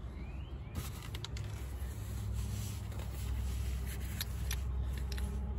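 A steady low hum, with a few light clicks and rustles of handling under the car.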